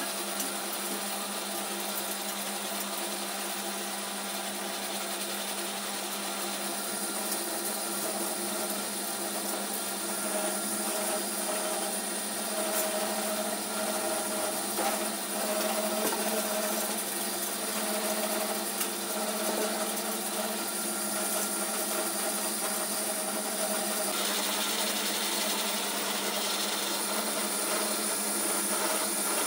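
Small electric pellet mill running steadily under load while rabbit feed mix is fed into its hopper and pressed into pellets: a constant motor hum with a rough mechanical noise over it.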